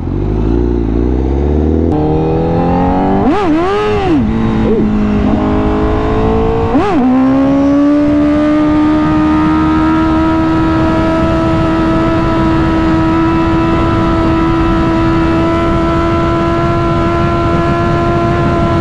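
Honda CBR1000RR-R SP Fireblade's inline-four engine under way: the revs climb, swing up and drop sharply twice in the first seven seconds, then hold a steady high pitch, over a low rushing noise.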